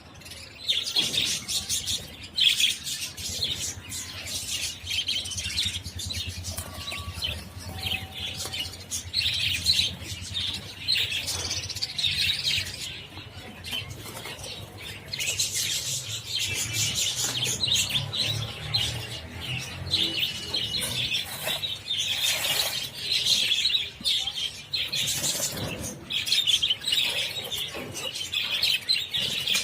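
A flock of budgerigars chattering and chirping continuously, many birds calling at once.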